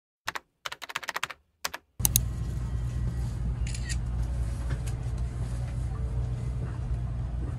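A quick run of sharp clicks and taps from handling a pink leather-look card binder, then, about two seconds in, a steady low rumble of a moving train heard from inside the carriage.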